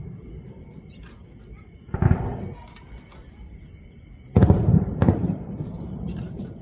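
Fireworks shells bursting: one boom about two seconds in, then two more close together near the end, each trailing off briefly after the bang.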